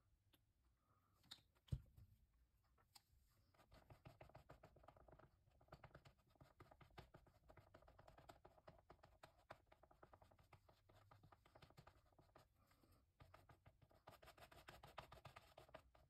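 A sponge rubbed quickly back and forth over a textured acrylic painting, a faint, fast, scratchy scrubbing that stops briefly about two-thirds of the way through, then resumes. A single sharp knock comes just before the scrubbing starts.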